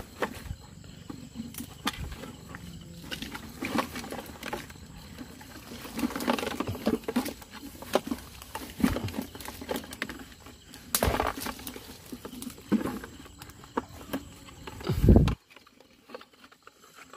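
Irregular rustling, crackling and snapping of twigs and mangrove branches as someone moves through the brush. A loud, low thump builds about fifteen seconds in and then cuts off suddenly.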